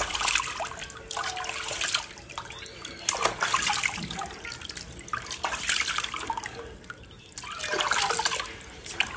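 Bathwater splashing and trickling in irregular spurts as hands scoop it from a tub and pour it back, with drips in between.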